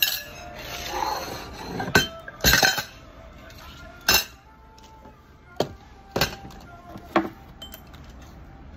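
Dishes clinking and clattering as plates, a ramekin and glasses are set into a plastic bus tub: a string of sharp knocks, about one a second.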